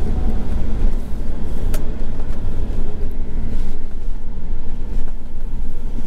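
An RV being driven slowly, heard from inside the cab: a steady low rumble of engine and road noise.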